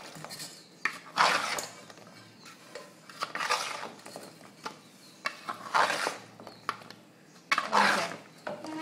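A metal spoon scraping around a large metal pan while fried dough cubes (shakar paray) are stirred quickly to coat them in sugar syrup. There are four long sweeps about two seconds apart, with small clinks of spoon on pan between them.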